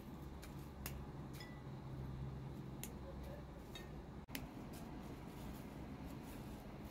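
Fresh herb leaves being plucked from their stems by hand, with scattered faint crisp snaps and clicks over a low steady hum.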